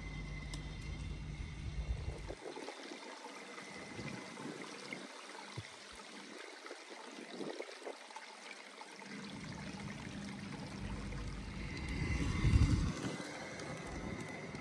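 Water trickling, with an LGB 2095 'Bobo' G-scale model diesel locomotive rolling along the garden-railway track. Its low rumble builds and is loudest as it passes close, about twelve seconds in.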